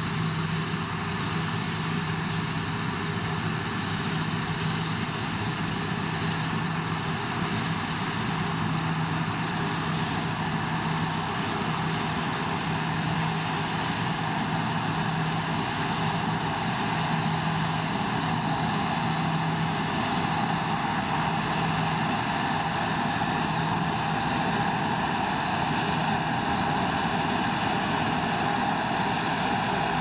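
Claas Lexion 750 combine harvester running steadily while cutting and threshing winter barley: a constant engine and machinery drone with a steady low hum, growing a little louder as the combine comes closer.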